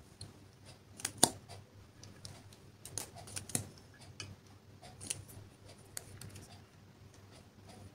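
Light clicks and taps of plastic makeup tubes and their caps being handled over clear slime in a glass dish, coming irregularly, the sharpest about a second in and about three and a half seconds in.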